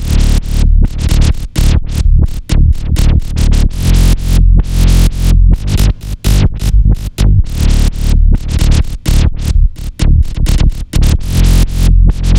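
Electronic intro music with a heavy, pulsing beat and deep bass.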